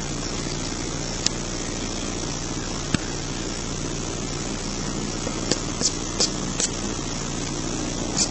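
Lada Kalina front suspension ball joint, clamped in a vise, with its stud worked by hand and giving short sharp clicks from play in the joint: two spaced clicks, then a quicker run of four or five in the second half. A steady low hum runs underneath.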